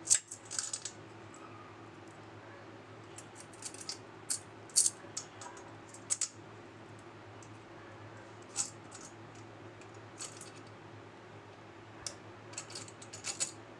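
Scattered light clicks and scrapes of small metal mounting hardware (plate washers and the engine mounting plate) being handled and fitted to a bicycle frame, a few sharp ticks every second or two, over a steady low hum.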